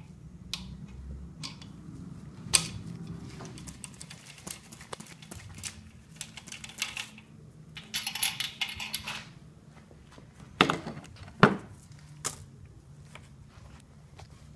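Metal hand tools clinking and knocking on an engine block's main bearing caps as a socket wrench is worked on the cap bolts. Scattered sharp metallic clicks, a short rattling burst about halfway, and two louder knocks a little under a second apart about two-thirds of the way through.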